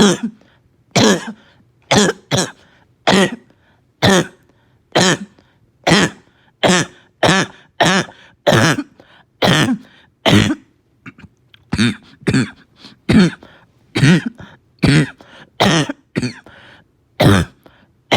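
A person's barking cough, coughing over and over, about twenty short coughs at roughly one a second, each with a low pitched tone. The cough comes with a slight fever.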